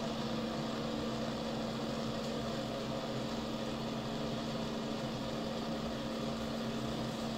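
Gas cartridge blowtorch burning steadily, preheating 3 mm aluminium plates to about 250 °C before stick welding, with a steady low hum underneath.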